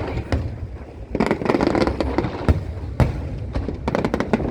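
Aerial fireworks going off in a rapid irregular series of sharp bangs and crackles over a continuous rumble, with single loud reports a little past two and at three seconds and a dense cluster of cracks near the end.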